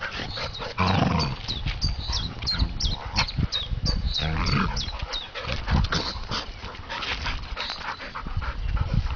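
Two golden retrievers play fighting: low growls and grunts over a busy scuffle of bodies, paws and snapping jaws.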